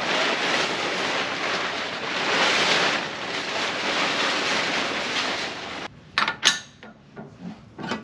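Wood-Mizer LX55 band sawmill cutting through a tulip poplar log: a steady hissing rush that stops abruptly about six seconds in, followed by a few sharp knocks and clatters.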